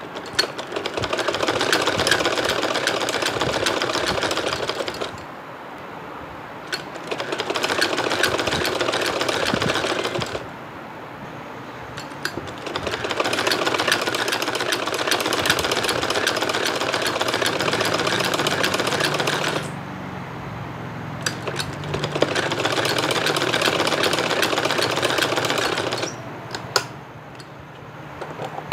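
Black straight-stitch sewing machine running as it stitches along a folded fabric strip, in four spells of a few seconds each with short pauses between, and a few clicks near the end.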